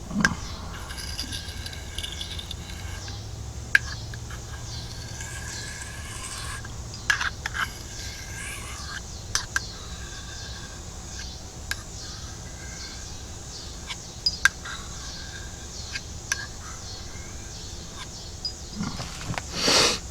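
Steel knife blade worked on an oiled Arkansas whetstone: soft scraping strokes broken by scattered sharp clicks and taps of metal on stone, with a louder rustling scrape near the end.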